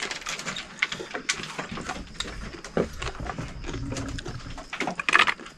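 Eating by hand: wet chewing and lip-smacking, with fingers squishing food in a metal bowl, a dense run of short clicks and smacks.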